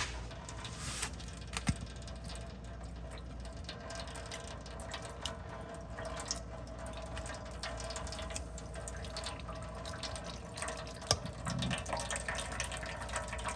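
Old gear oil mixed with water trickling and dripping in thin streams from a loosened transmission side cover, over a steady low hum.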